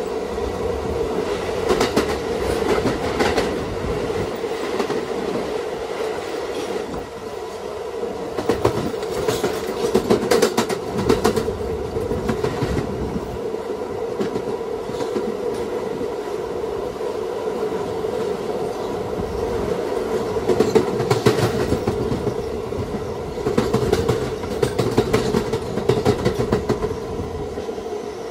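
Kawasaki R211A New York City Subway car running along the track: a steady hum with a rolling rumble, and clusters of sharp clicks as the wheels pass over rail joints, thickest about two to three seconds in, around ten seconds and again from about twenty-one to twenty-six seconds.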